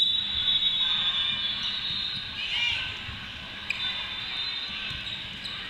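Busy volleyball hall ambience: a referee's whistle blast right at the start, then a steady murmur of the crowd and other courts with sneakers squeaking on the court floor about two and a half seconds in.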